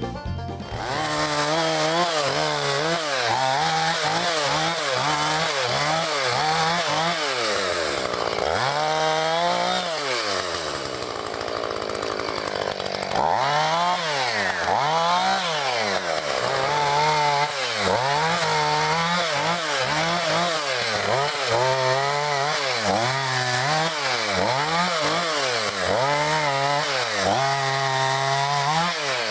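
Two-stroke chainsaw revving up and down over and over, its pitch rising and falling about once a second, with a short lower, steadier stretch about midway.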